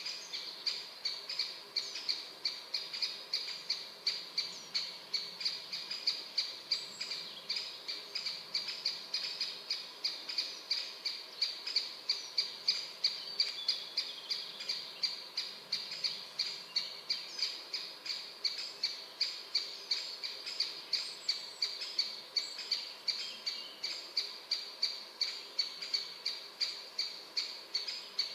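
A bird repeating one short, high call without a break, two or three times a second, at a steady pitch, with other birds calling faintly now and then.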